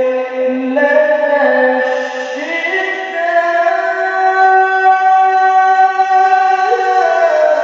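A man reciting the Quran in melodic tilawah style into a microphone: long held, ornamented notes that step up in pitch about two seconds in and fall back near the end.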